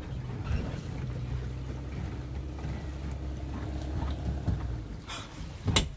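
Tow vehicle's engine running steadily as the car and boat trailer move, heard from the boat on the trailer; the hum falls away about five seconds in, and two short knocks follow near the end.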